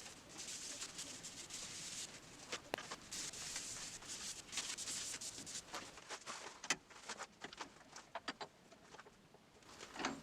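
Rubbing strokes on a surface with scattered light clicks and taps, the taps thicker in the second half.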